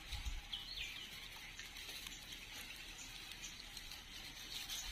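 Quiet outdoor background with faint patter and rustle in dry leaf litter, where a common sand boa is crawling, and a short high chirp about half a second in.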